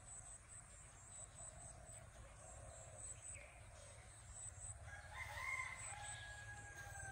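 A rooster crowing once, a drawn-out call that starts about five seconds in and is held for about two seconds. Under it runs a faint high insect chirping in a regular pulse.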